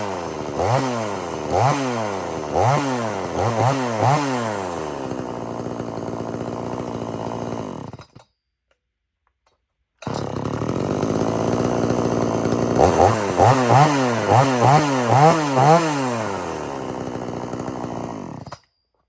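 Xtreme Power 62100XP 45cc two-stroke gas chainsaw being revved in a series of quick throttle blips, then settling to a steady idle. The sound cuts out for about two seconds, then the saw is running again and gets another burst of blips before dropping back to idle. It stops abruptly near the end.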